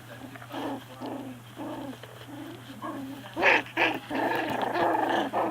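Shetland Sheepdog puppies, a few weeks old, growling at each other as they play-fight. Two sharper yips come about three and a half seconds in, and the growling grows louder and more continuous after that.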